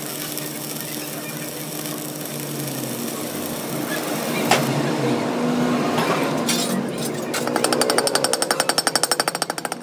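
Arc welding crackling steadily for the first four seconds or so, then sharp metal strikes on steel: two single blows, then a fast, even run of knocks at about ten a second near the end.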